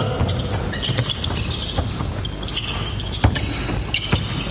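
Live basketball play on a wooden court in a large, echoing gym: sneakers squeaking and a ball bouncing, with two sharper thuds about three and four seconds in.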